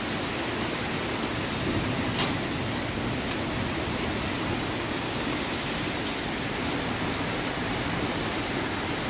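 Heavy rain with pea-sized hail coming down, a steady, even hiss throughout, with one sharp tick about two seconds in.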